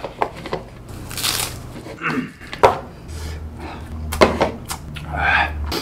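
Spoon and chopsticks knocking and scraping against a bowl as rice is mixed with spicy seasoned raw crab, with several sharp clicks, the loudest about two and a half seconds and four seconds in.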